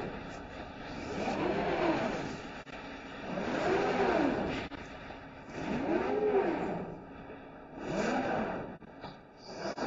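Servo drives of a CNC glass cutting machine whining as the cutting head traverses. The pitch rises and falls with each move, speeding up and slowing down four times, about every two seconds, over steady machine noise.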